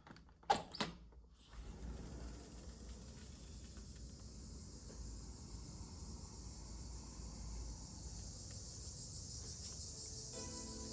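A couple of clicks, then a steady high-pitched insect chorus. Plucked-string music comes in near the end.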